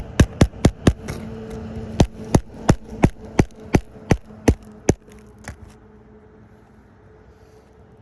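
Hammer driving roofing nails to refasten an asphalt shingle: four quick strikes, a short pause, then about nine more at roughly three a second, stopping about five seconds in.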